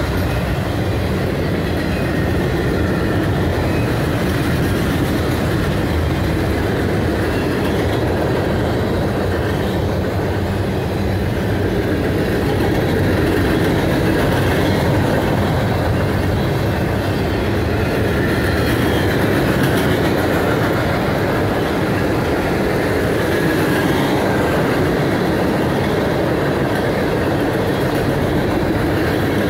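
Freight cars (boxcars, covered hoppers and tank cars) rolling past: a steady rumble and clatter of steel wheels on the rails.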